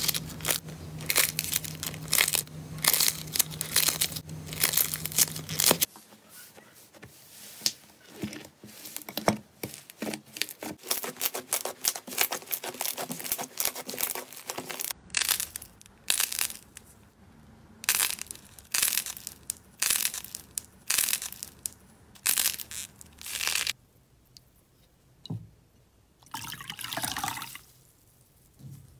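Slime being squeezed, pressed and pulled by hand: a quick run of crackling, squelching bursts. The texture changes abruptly about 6, 15 and 24 seconds in, as one clip gives way to the next, and the bursts thin out near the end.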